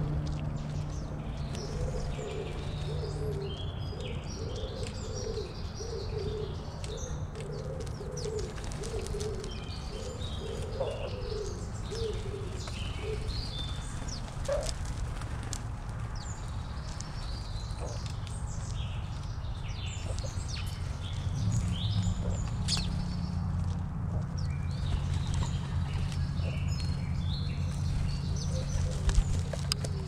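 Small birds chirping, with a dove cooing a run of low, evenly spaced notes for the first dozen seconds or so, over a steady low hum.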